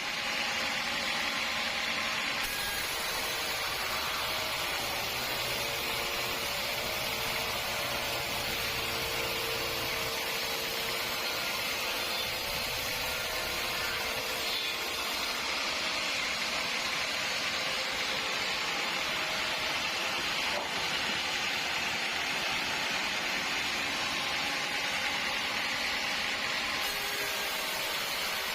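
Sawmill machinery running steadily: a continuous, even rush of noise with a faint hum underneath.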